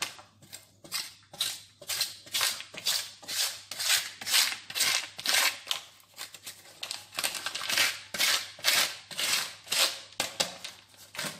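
Block of butter rubbed over a flat metal hand grater, rasping in short, even strokes about two to three a second.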